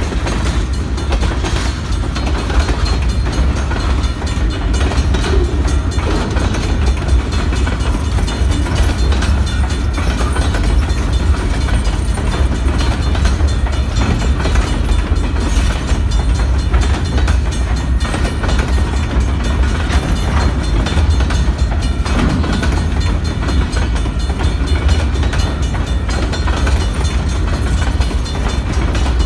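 Freight cars of a passing freight train rolling by: a steady low rumble of steel wheels on the rails, with scattered knocks and clicks from the wheels and couplings.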